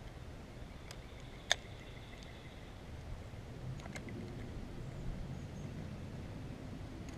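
Low steady rumble on the camera microphone, with one sharp click about a second and a half in and a few fainter clicks around four seconds.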